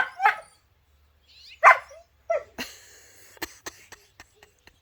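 A dog barks in short yelps, twice at the start and again about a second and a half in. It is followed by a brief rustling scuffle and a string of sharp clicks as the dog plays with a rooster.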